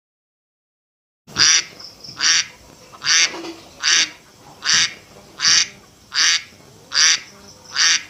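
Domestic duck quacking in a steady, even rhythm, about one loud quack every 0.8 seconds. The quacking starts about a second in, nine quacks in all.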